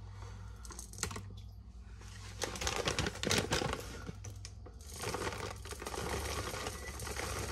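Whole black peppercorns rattling as they are tipped out of an overfilled pepper grinder's clear chamber: a dense patter of small clicks in two spells, about two seconds in and again about five seconds in.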